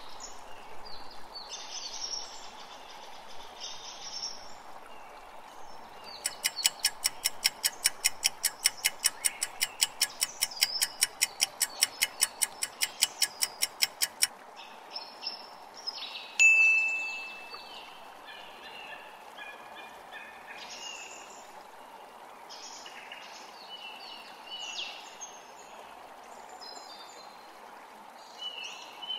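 A countdown-timer sound effect ticks rapidly and evenly for about eight seconds, and a couple of seconds later a single chime rings out and fades. Behind it runs a steady nature ambience of birds chirping over a soft water-like hiss.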